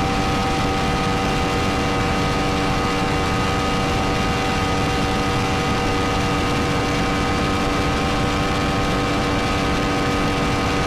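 Yamaha MT-10's crossplane inline-four engine held flat out near top speed, about 295 km/h: a steady, unchanging note with a heavy rush of wind over the bike.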